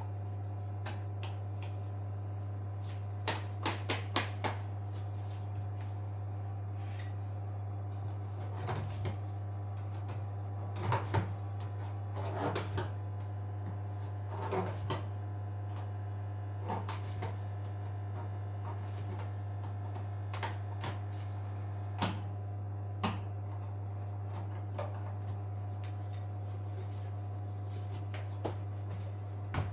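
Irregular clicks and knocks of tools and parts being handled during washing machine repair work, a cluster of quick taps a few seconds in and scattered ones after, over a steady low hum.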